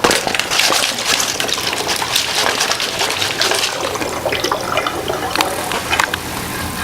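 Water pouring from one bottle into another through a tornado tube connector, gurgling and splashing. It is busiest in the first few seconds, thins out, and stops about six seconds in.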